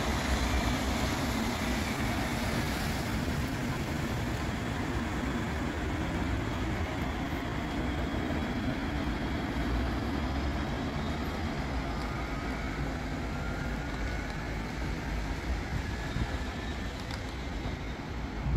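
Red KVB light-rail train pulling away from the stop, a steady rumble with faint rising electric whines as it gets under way.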